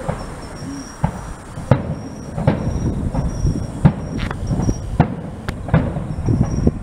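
Aerial firework shells bursting: about ten sharp bangs at irregular intervals, with low rumbling booms between them.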